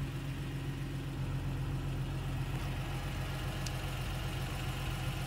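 Honda NSX's 3.0-litre V6 idling, a steady low hum.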